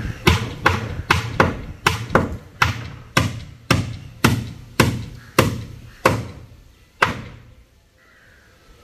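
Hammer blows on the timber shuttering around a concrete column, sharp ringing strikes at about two a second that slow a little and stop about seven seconds in.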